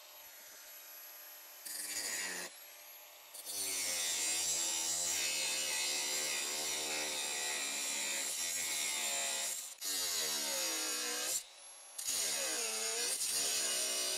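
Cordless angle grinder with a thin cutoff wheel cutting through steel stock, its whine wavering in pitch as the wheel bites. There is a short burst about two seconds in, steady cutting from about three seconds in, and a brief break near eleven seconds.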